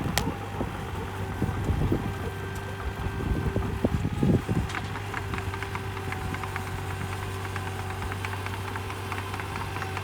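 Komatsu PC28UU-2 mini excavator's diesel engine running under test, with a steady hum and a steady whine. Several heavy knocks and clatter come in the first half, and fast light ticking in the second half.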